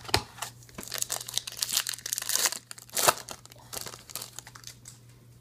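Foil trading-card pack crinkling and tearing as it is ripped open by hand, dying away near the end.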